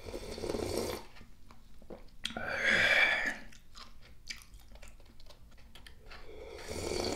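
Broth slurped straight from the rim of an instant yukgaejang cup-noodle bowl at the start and again near the end, with wet chewing and small mouth clicks in between. A louder breathy burst comes about two and a half seconds in.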